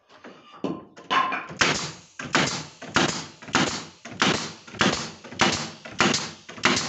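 Pneumatic pin nailer driving pins into cedrinho ceiling boards, firing a quick, regular run of about ten sharp shots roughly every 0.6 s, starting about a second in.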